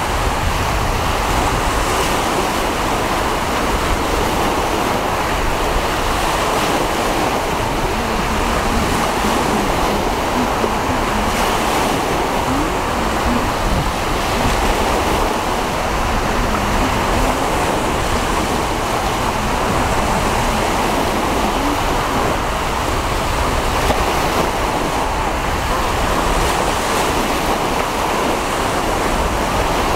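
Steady rush of wind and choppy sea surf, with wind blowing across the microphone.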